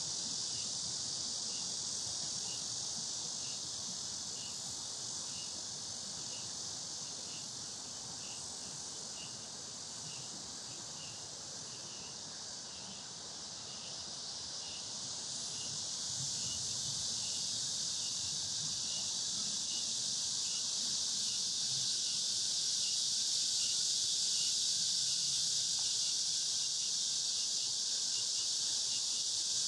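Cicadas buzzing in a dense, continuous high chorus that swells louder a little past halfway, with a softer pulsing call beneath it at about two a second.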